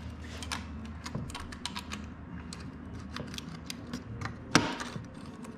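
Irregular small clicks and taps of hand tools and wire being worked inside an electrical control box, with one louder click about four and a half seconds in.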